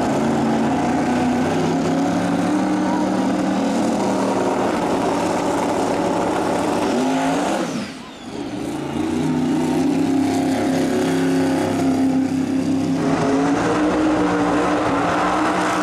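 Drag race car V8 engines held at steady high revs, loud throughout. About halfway the revs fall away and cut out briefly, then another car's engine picks up and holds steady through a smoky burnout.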